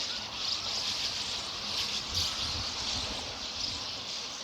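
Sand martins twittering: a continuous, high, dry chatter of many overlapping calls.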